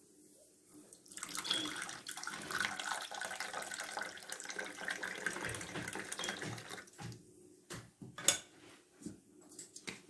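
Water running from a tap for about six seconds, starting about a second in, then a few short knocks.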